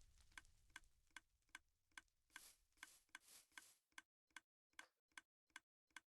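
Faint, regular ticking clicks, about two and a half a second, with a few soft swishes partway through.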